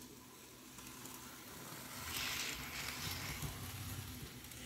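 Small electric model train locomotive with tender running round sectional track on a hard floor: a faint whirring, rattling run that grows louder a couple of seconds in as it passes close, then eases off.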